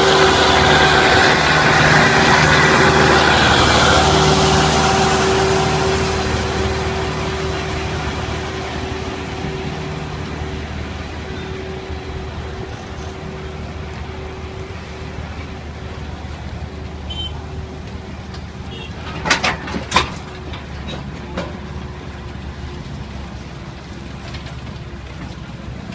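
Tractor diesel engine running as it passes close while pulling a long train of loaded trailers. The engine sound fades after about five seconds into the rumble of the trailers rolling by. Two sharp knocks come about three-quarters of the way through.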